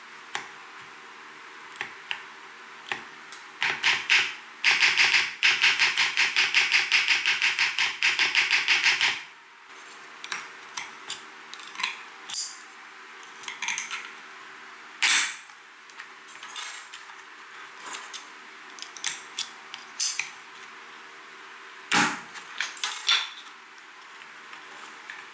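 Typing on an Mstone Groove T87A mechanical keyboard with 45 g silent milky switches: a fast run of keystrokes for about four seconds, then scattered single keystrokes and short bursts.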